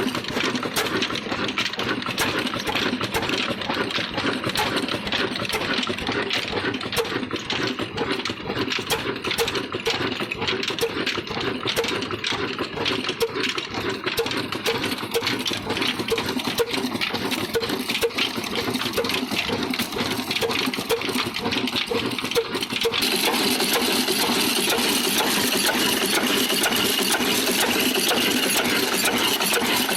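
Old stationary diesel engine running with a rapid, even knocking beat. About two-thirds of the way through, the sound changes to a steadier, louder and hissier mechanical noise.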